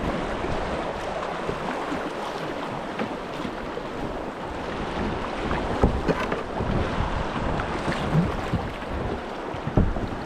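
River current rushing steadily around a kayak, with occasional paddle splashes and knocks against the boat, the strongest about six seconds in and near the end.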